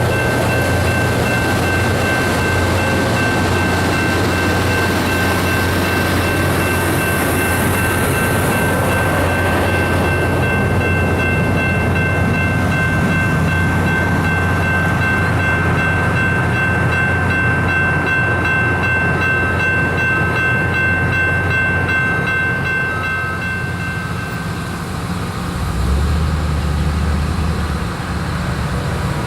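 LORAM RG308 rail grinder train working: a steady low diesel drone under a set of steady high-pitched whines, which stop near the end.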